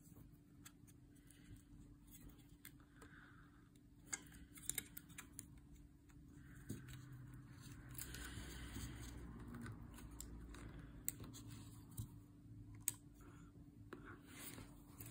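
Faint clicks, taps and rubbing of plastic model-airplane parts being handled and fitted together, with a few sharper clicks scattered through.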